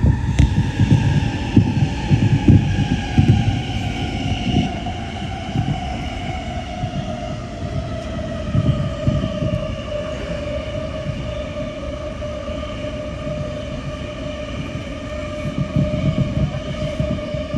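Electric commuter train running at speed, its traction motors whining in a tone that falls steadily in pitch as the train slows. Irregular low thumps come through underneath, heaviest at the start and again near the end.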